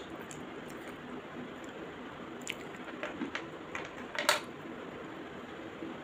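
Slate pencil being bitten and crunched in the mouth, held close to the microphone: a handful of sharp crunches in the second half, the loudest a little past four seconds, over a steady background hiss.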